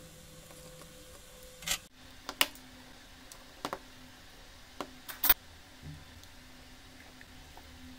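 18650 lithium-ion cells clicking against each other and being set down on a cutting mat: about half a dozen sharp taps, the loudest just past five seconds in, over a faint steady hum.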